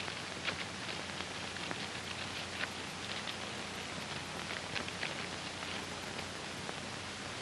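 Steady hiss of an old film soundtrack, with faint scattered clicks and crackles.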